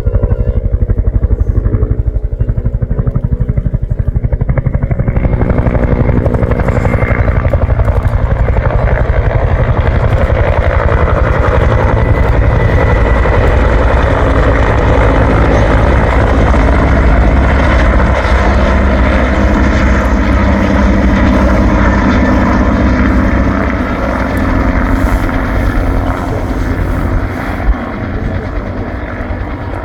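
Bell UH-1H Huey helicopter in flight: the low beat of its two-bladed main rotor over the rush of its turboshaft engine. About five seconds in the sound grows brighter and hissier, and it eases a little after about twenty-three seconds.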